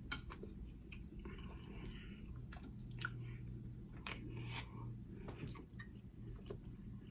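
Close-miked chewing and mouth noises of a person eating, with scattered small clicks.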